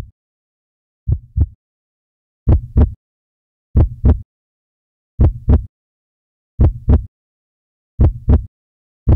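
Slow heartbeat: paired lub-dub thumps repeating about every second and a half, roughly seven beats, with silence between.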